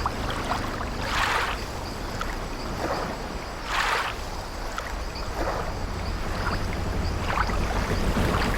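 Ambient old wooden ship at sea: waves washing against the hull over a steady low rumble, and the ship's wooden timbers creaking now and then, four or five times.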